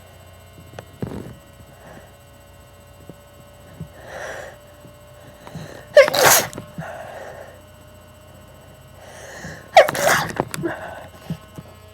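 A person sneezing twice, about four seconds apart, each loud, sudden sneeze preceded by audible breaths in. These are allergic sneezes set off by flower pollen.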